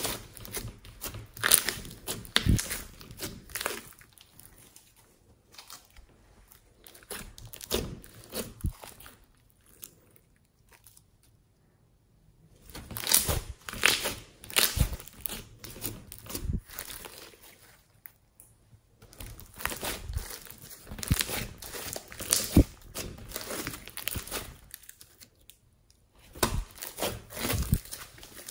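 Fluffy slime with foam beads being squeezed, pressed and stretched by hand, giving sticky crackles and sharp popping clicks. The sound comes in spells of a few seconds with short quiet pauses between.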